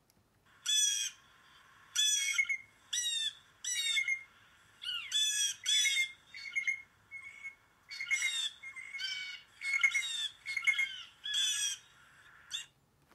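Blue jay calling: a rapid run of about twenty short, harsh calls with a few clearer whistled notes among them, starting just under a second in.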